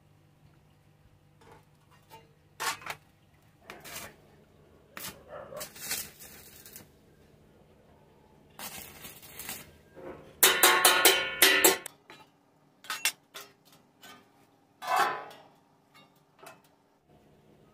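Galvanized sheet-metal tray knocked and clanked as it is handled, with a loud crackling burst of about a second and a half roughly ten seconds in, a stick-welder tack weld on the tray.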